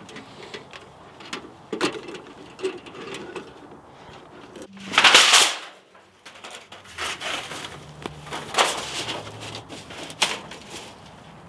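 Handling noises from pitching a tent: rustling with scattered light knocks and clicks, and one loud swish of just under a second about five seconds in.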